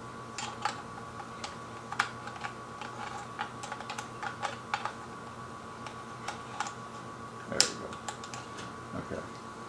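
Irregular light clicks and taps of cables and small metal parts being handled while fitting a telescope focuser, with a sharper knock about seven and a half seconds in. A steady faint hum runs underneath.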